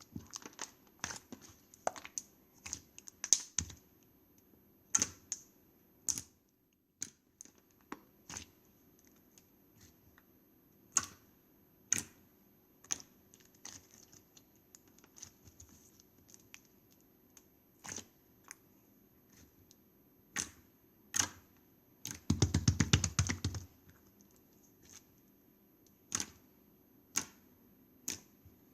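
Ice slime being pressed and poked by hand: sharp, irregular crackles and pops, with a dense burst of rapid crackling lasting about a second and a half near the end.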